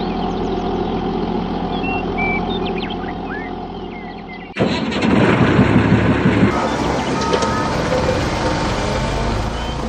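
Vehicle engine running steadily, with short high chirps above it. About halfway through, an abrupt cut switches to a louder, rougher engine sound.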